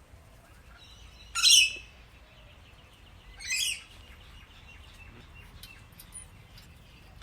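Pet parrot giving two loud, shrill calls about two seconds apart, with soft chirping between them and another call starting near the end.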